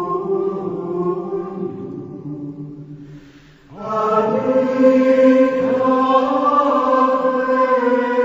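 Slow choral singing in long held chords that fade out, then a new passage starts abruptly and louder about four seconds in.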